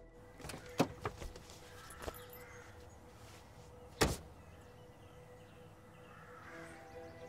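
A car door shutting with one heavy thunk about four seconds in, after a few lighter knocks and clicks. Faint music with held tones plays underneath.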